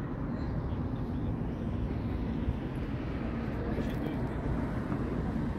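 A steady low rumbling outdoor noise with faint, indistinct voices in the background.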